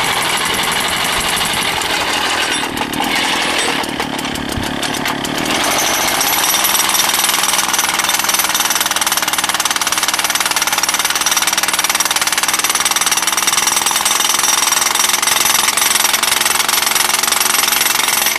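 Wacker BH23 gas-powered two-stroke jackhammer running unevenly for the first few seconds. About six seconds in it picks up speed and settles into steady, rapid hammering, its chisel bit pounding on a piece of sandstone.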